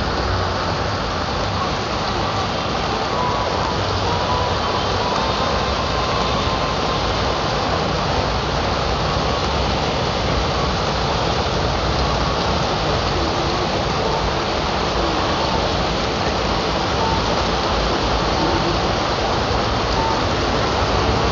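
Rain falling steadily in a thunderstorm, a dense even hiss that does not let up.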